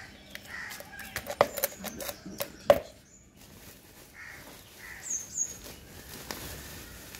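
Hand trowel scraping and knocking as potting soil is scooped and dropped into a plastic plant pot, a run of sharp clicks, then softer rustling of the plastic potting-mix sack. Crows caw in the background.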